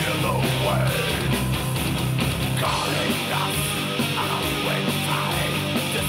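Heavy metal song with distorted electric guitars and growled vocals, played through Edifier R1010BT compact desktop speakers and picked up by a recorder in the room.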